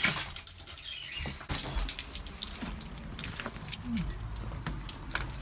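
Small metal pieces jingling and clinking in many quick, irregular clicks, as at a front door when a dog on a lead is taken out.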